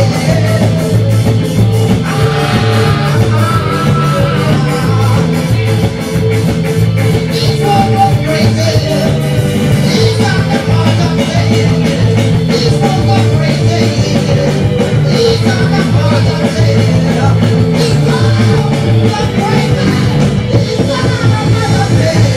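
Live reggae band playing amplified through a PA: electric guitar, keyboard, bass and drums keeping a steady beat, with a man singing into a microphone over it.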